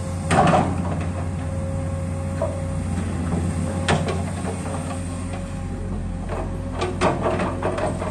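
Komatsu PC200 hydraulic excavator's diesel engine running steadily as it digs and shifts mud, a constant low hum with a thin high tone over it. A few knocks are heard, one near the start, one about halfway and a cluster near the end.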